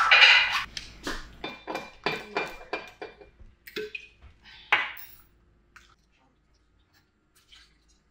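Dishes and cutlery clinking and clattering: one loud burst at the start, then a quick run of sharp clinks, some ringing briefly. It stops about five seconds in.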